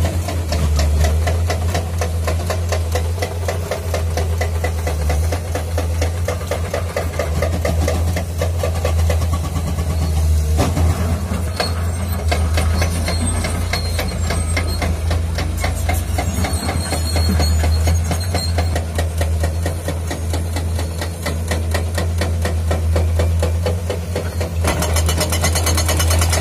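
Excavator diesel engines running steadily under load, with a hydraulic rock breaker hammering at rock in rapid, evenly repeated strikes.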